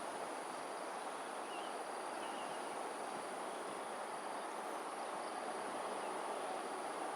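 Steady outdoor evening ambience: a constant high-pitched insect drone over a broad, even rush, with a couple of faint short chirps about two seconds in.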